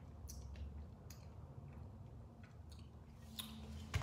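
Faint, scattered clicks and light handling noise over a low, steady room hum.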